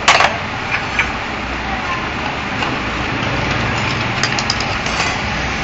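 Light metal clinks of hand tools on a motorcycle's exposed cylinder head and valve gear: a sharper clack right at the start, two lighter ones around a second in, and a quick run of small clicks about four seconds in, over a steady background hum.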